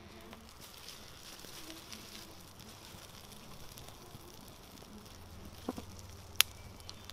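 Burning birch-bark tinder and a small teepee of dry twigs catching fire: a soft rush of flame with light crackling, and one sharp crack about six seconds in.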